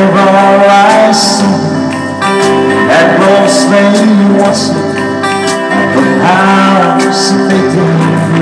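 Live music: a man singing over a Korg arranger keyboard playing sustained chords, with a cymbal-like hit coming in every few seconds.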